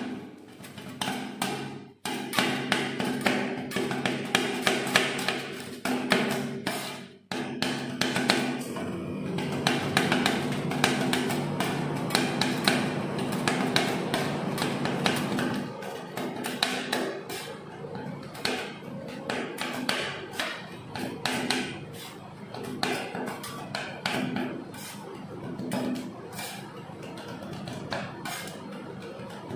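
Two steel spatulas chopping strawberry roll cake on the frozen steel plate of a rolled ice cream machine: rapid, uneven metal taps and scrapes against the plate.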